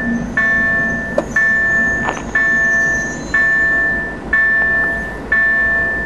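Level-crossing warning bell ringing about once a second, each stroke a bright high tone that fades before the next: the crossing is closed for an approaching train.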